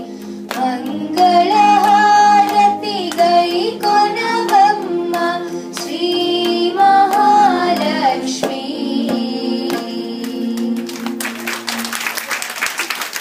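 A girl singing a song into a microphone, accompanied by tabla strokes over a steady drone; the singing ends about eight seconds in and the drone a few seconds later. Applause starts near the end.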